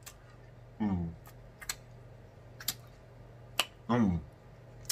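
Wet mouth clicks and lip smacks as food is sucked off the fingers, with two short, falling "mmm" hums of enjoyment, about a second in and near the end.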